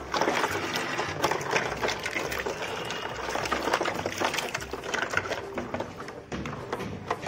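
Water splashing and sloshing in a plastic tub as hands push small plastic toy cars through it, with light clicks and knocks of the toys. The splashing eases near the end.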